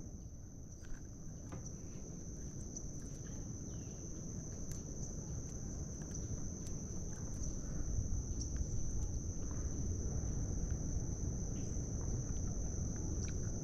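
Steady, high-pitched insect chorus, with a low rumble underneath and a few faint ticks.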